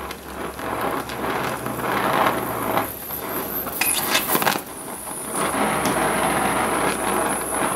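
Brazing torch flame running steadily with a hissing rush while a clutch rod's pin hole is built up with braze. A few light metallic clinks come about four seconds in.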